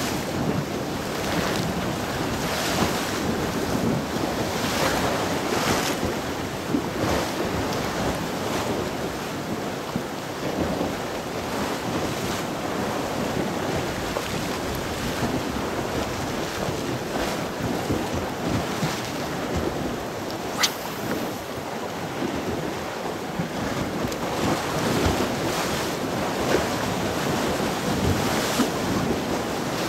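Sea waves washing ashore in a steady hiss that swells and falls, with wind buffeting the microphone. A single sharp click about two-thirds of the way through.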